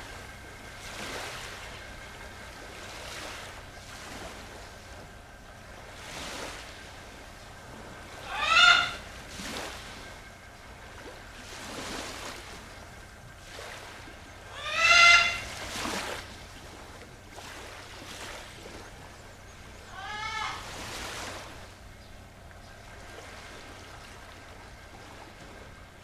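Waves washing in and out in repeated swells, with a bird calling loudly three times over them, about a third of the way in, in the middle and about three quarters through.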